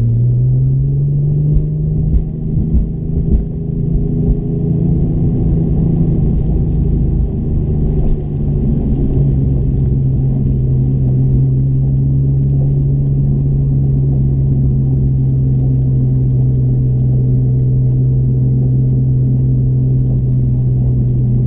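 Porsche engine, being checked for misfires, settles at a steady raised speed just after a short rev up and holds there with a steady drone, dipping slightly in pitch about nine seconds in.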